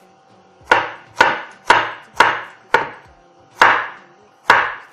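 Knife chopping mango into small pieces: seven sharp strokes, about two a second, with a short pause before the last two.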